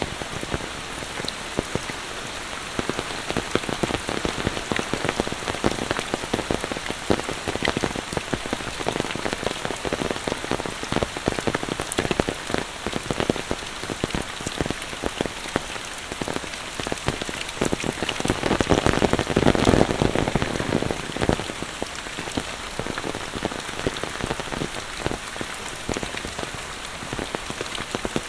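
Monsoon rain falling steadily, a dense patter of drop hits close by, which swells louder for a couple of seconds about two-thirds of the way through.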